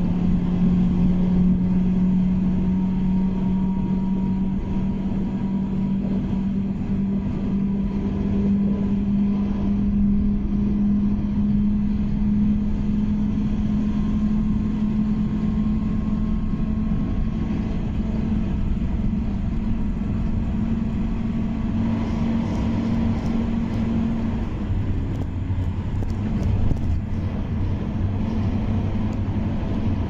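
Car driving along a road, heard from inside the cabin: steady engine and tyre noise with a drone that slowly rises in pitch, then drops away about three-quarters of the way through, leaving a lower rumble.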